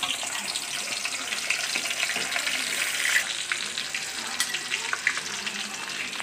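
Catla fish head frying in hot oil in a kadai: a steady sizzle full of small crackling pops.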